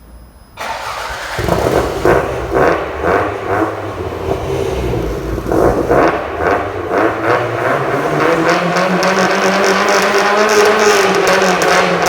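Toyota Celica GT-Four RC's turbocharged 3S-GTE four-cylinder through a Kakimoto exhaust, blipped several times in quick succession, then held at higher revs with the pitch slowly rising and easing back near the end.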